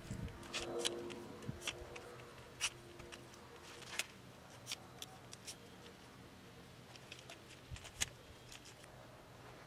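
Faint handling noise on the camera: scattered light clicks and ticks at irregular intervals, the sharpest about 2.5 s, 4 s and 8 s in, with a faint steady hum over the first few seconds.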